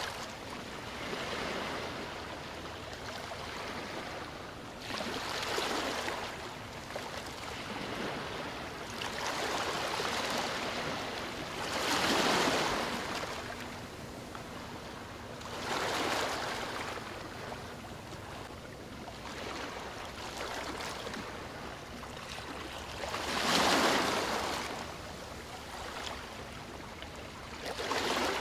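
Sea waves washing onto the shore: each wave swells into a hiss and fades, one every few seconds, with the two strongest about twelve and twenty-four seconds in.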